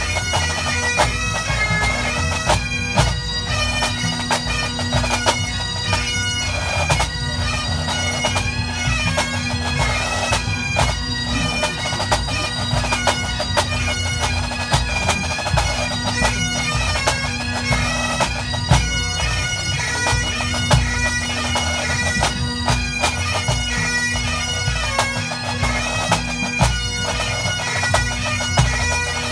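Scottish pipe band playing Great Highland bagpipes, the chanters' melody over a steady drone, with snare, tenor and bass drums beating along, in a march, strathspey and reel competition set.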